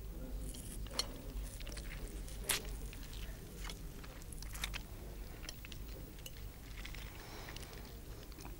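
Faint mouth sounds of a man picking his teeth with a toothpick: small scattered clicks and sucks at the teeth.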